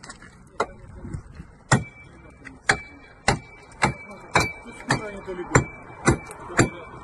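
Sharp, evenly spaced knocks, about two a second, starting a couple of seconds in, with a steady high-pitched tone sounding alongside them.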